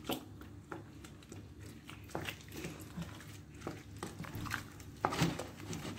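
Wooden spoon stirring a simmering rice and minced-meat mixture in a stainless steel pot: soft wet stirring with irregular light clicks and scrapes of the spoon against the pot, a little louder about five seconds in.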